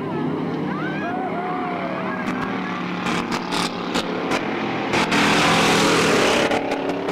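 Several dirt-track stock car engines running hard as the cars race through a turn, their pitch rising and falling. About five seconds in, a loud hissing rush lasts for about a second and a half.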